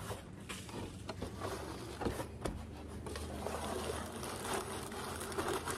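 Dead leaves and debris being scraped and scooped by hand out of a metal roof gutter: irregular rustling and scraping with many small knocks against the metal.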